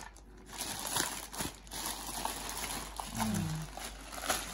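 Plastic mailing bag crinkling and rustling as hands pull it open around a cardboard box, with a short vocal sound from a person about three seconds in.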